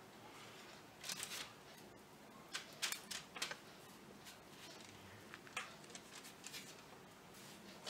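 Faint, short rustles and light taps of hands laying cut-out puff pastry shapes onto a paper-lined baking plate, a few bursts spread out with quiet in between.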